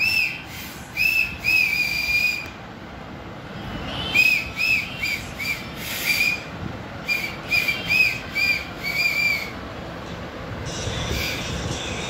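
Short, high whistled notes, each rising and falling in pitch, come in irregular runs with brief pauses. One note is held for about a second, a second or so in. The notes stop near the end, where a steady hiss takes over.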